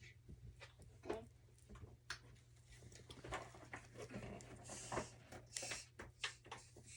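Faint, scattered rustles and small clicks of hands handling things close by, with no speech.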